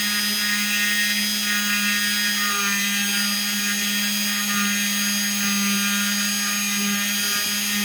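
Handheld rotary tool with a diamond bit running steadily, its motor whining at an even pitch, as it drills a hole into a citrine crystal held under water.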